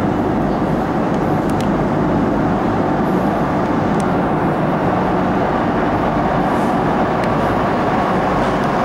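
MTR Island Line Metro-Cammell M-Train electric multiple unit approaching through the tunnel: a steady, loud running noise of wheels on rails, carried by the tunnel.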